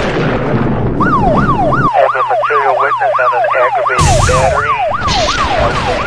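Electronic emergency siren in a fast yelp, about four quick downward sweeps a second, coming in about a second in over a burst of noisy whoosh. A second burst of noise cuts in about four seconds in while the yelp carries on.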